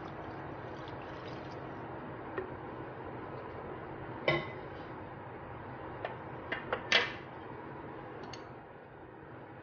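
Water pouring into a pan of seafood and vegetables, then a wooden spatula stirring the broth and knocking against the pan: one ringing knock a little over four seconds in and a quick run of clicks and knocks around six to seven seconds, the last the loudest.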